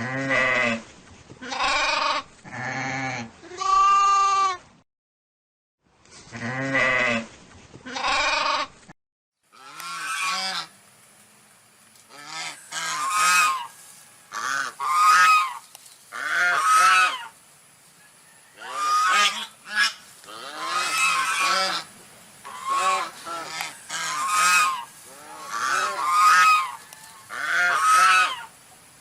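Goats bleating several times, then, after a short gap, geese honking in a long run of short repeated calls.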